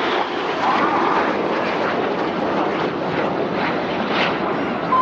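Jet noise from BAE Hawk T1 jets with Adour turbofan engines flying low past, a steady loud rushing roar.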